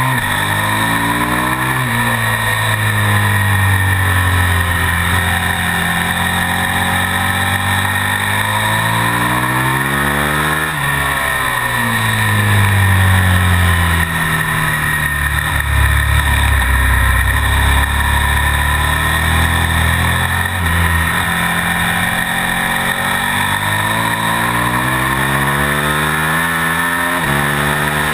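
KTM Super Duke V-twin racing engine under hard throttle, its pitch climbing through each gear and dropping sharply at the shifts, about 2, 11 and 27 seconds in. After about 11 seconds the revs fall for a while as the bike slows for a corner, run low and steady, then climb again.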